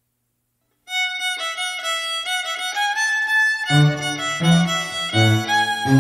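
Folk fiddle playing a Goral Christmas carol tune, starting alone about a second in; just before four seconds in, lower bowed strings join with a rhythmic accompaniment of low notes.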